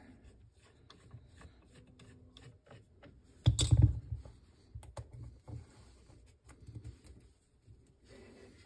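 Faint clicks and taps of a screwdriver turning a lock screw into a wooden muzzleloader stock, with one louder knock about three and a half seconds in, then light handling taps.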